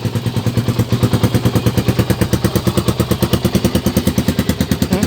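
Motorstar Cafe 400 motorcycle engine idling low, a steady even chug of about ten pulses a second.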